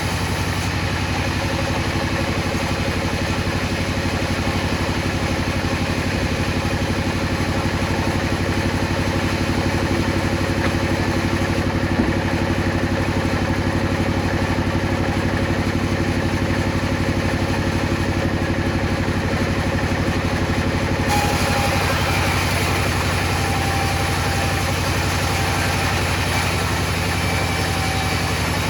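A motor running steadily with an even low pulsing hum; about 21 seconds in its tone shifts, turning brighter and hissier.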